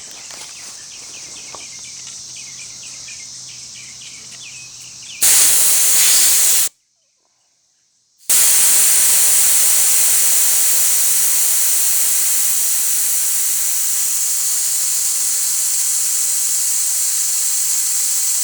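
Insects chirping with a faint low hum, then about five seconds in a loud, steady hiss of compressed air escaping from the air compressor. The hiss cuts to silence for a moment and then resumes, easing slightly.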